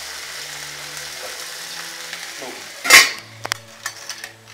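Clams sizzling in hot olive oil and garlic in a stainless steel pan, a steady hiss. About three seconds in comes one loud, short rush of noise, then a few light clicks and knocks as the sizzling quietens.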